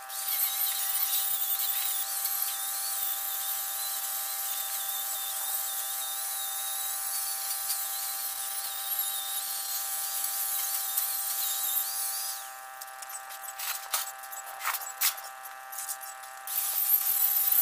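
A small electric motor running at a steady speed, giving an even whine with hiss over it. The hiss drops away for a few seconds near the end, leaving the whine and a few sharp clicks.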